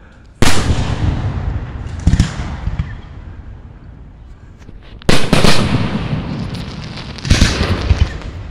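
Aerial firework shells bursting. A loud bang comes about half a second in, smaller bangs follow around two seconds, another loud bang comes just after five seconds, and a cluster of booms falls near the end. Each bang is followed by a rumbling tail that fades away.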